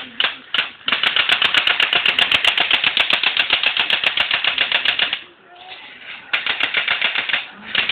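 Fully automatic battery-powered BB gun firing plastic BBs: a few single shots, then a long rapid burst of about four seconds, a brief pause, and two shorter bursts near the end.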